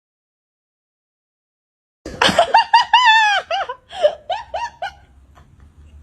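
Silent for about two seconds, then a run of short, high-pitched laughing cries, each falling in pitch, about three a second. They fade out after about five seconds.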